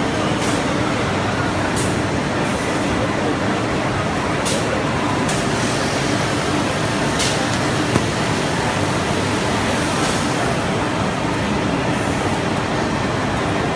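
Automatic CNC chair-leg mortising machine running: a steady, dense machine noise with a few short, sharp high ticks scattered through it.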